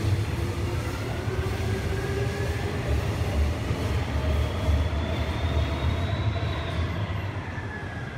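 Busan Metro 1000 series subway train pulling out of the station behind platform screen doors: a steady low rumble with motor whines that rise in pitch as it accelerates. One higher whine peaks about six seconds in and then falls, and the rumble fades near the end as the train leaves.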